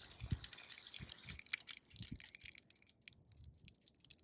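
Liquid ice melt hissing out of a hand sprayer's nozzle onto ice, the spray stopping about one and a half seconds in. Fine crackling clicks follow as the ice cracks under the melt, with a few soft thumps.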